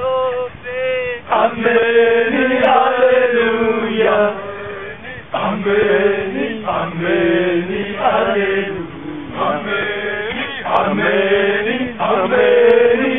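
A group of men and women singing a Swahili song together in repeated chant-like phrases.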